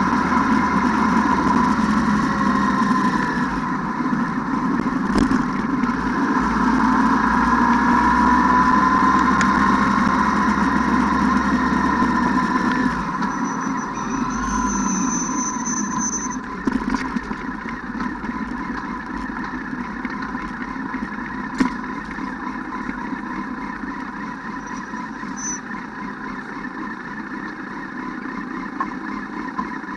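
ATV engine running, its pitch wavering slightly; it runs louder for the first dozen or so seconds, then settles to a quieter, steadier note. A brief high whine sounds about halfway through.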